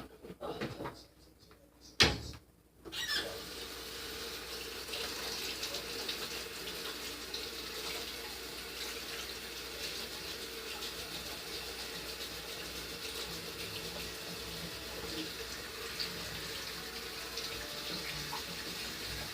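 A knock, then a water tap turned on about three seconds in and running steadily, filling a bowl with water.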